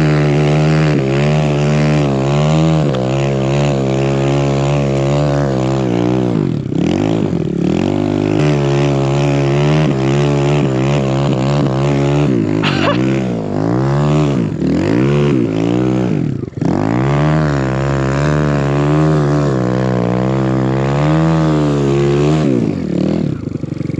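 Kawasaki KLX140RF dirt bike with a 170cc big-bore kit and BBR D3 exhaust, its single-cylinder four-stroke engine running steadily at first, then revving up and dropping back over and over as it is ridden through deep powder snow.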